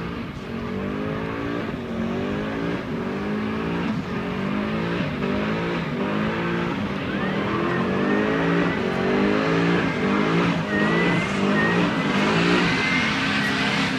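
A distant car doing a burnout on a drag strip: the engine is revved up and down over and over, and a high tyre squeal comes in about halfway through and gets stronger.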